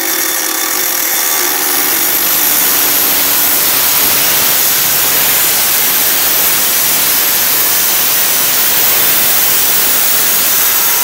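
Long-handle, variable-speed angle grinder cutting with an abrasive cutting disc: a steady, loud grinding noise over the motor's whine, which dips slightly as the disc bites in. The cut stops abruptly near the end.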